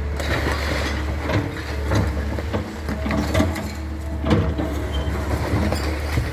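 Caterpillar 316 excavator's diesel engine running steadily, with irregular sharp knocks from the machine at work.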